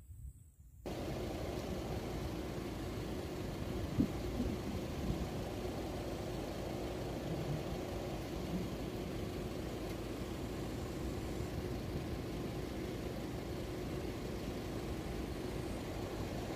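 Steady low engine rumble with a faint hum, starting abruptly about a second in: a road vehicle idling while it waits at the closed level crossing.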